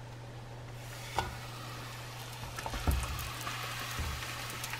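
Light oil sizzling in a nonstick frying pan as flour tortillas fry, the sizzle building from about a second in. A few soft knocks come as the tortillas are laid in and pressed down.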